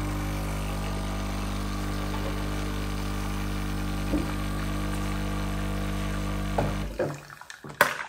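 Sage (Breville) Bambino Plus espresso machine's vibratory pump running with a steady hum as it pulls a two-cup espresso shot, cutting off about seven seconds in. A few clicks and a sharp clack follow near the end.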